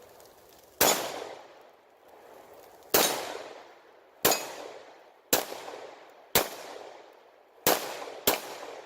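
Beretta 92FS 9mm pistol firing seven single shots at an uneven pace, each a sharp crack with a trailing echo; the last two come close together near the end.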